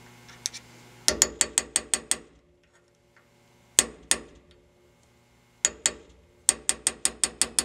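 Hammer tapping a steel pin punch to drive the ejector's drift pin into a rifle bolt, each light strike ringing briefly. A quick run of about seven taps comes a second in, two single taps near the middle, and another quick run near the end.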